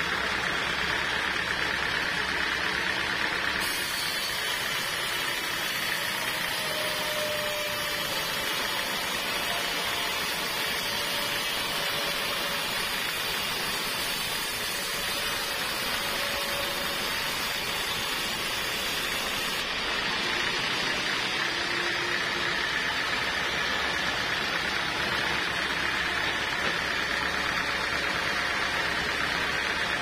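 Band sawmill running, its blade cutting lengthwise through a teak log: a steady, even saw-and-motor noise.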